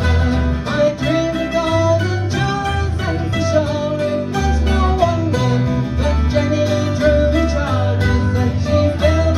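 Small acoustic-style band playing live: strummed acoustic guitar, mandolin and electric bass with a strong, steady bass line, and a voice singing the melody over them.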